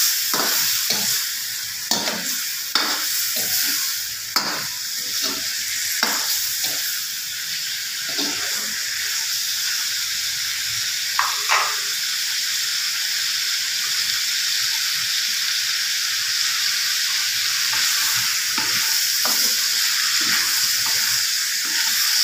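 Beef chunks sizzling steadily as they fry in oil in a wok, with a spoon scraping and knocking against the pan as they are stirred. The knocks come often in the first half, twice around the middle, and only now and then after that.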